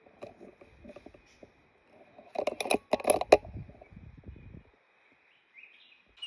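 Leaves and twigs in the forest canopy rustling and crackling, with a quick cluster of sharp snaps about two and a half to three and a half seconds in. It dies away a little after four and a half seconds, leaving only a faint steady high drone.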